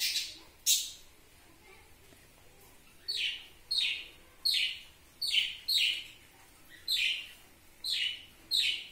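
Sun conure squawking: short, harsh calls, two in the first second, then after a pause of about two seconds a steady run of about three calls every two seconds.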